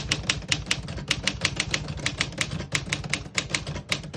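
1949 Smith-Corona Silent portable typewriter being typed on at a steady pace, about six keystrokes a second, each typebar striking the platen with a sharp clack. The Silent model's typing is a little more muffled than an ordinary typewriter's.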